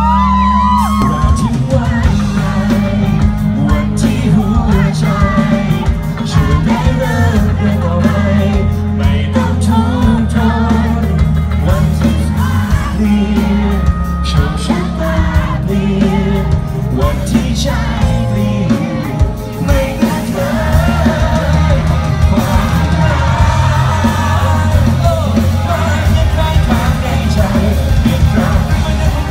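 Male singer singing live into a microphone over loud amplified band music with a heavy bass.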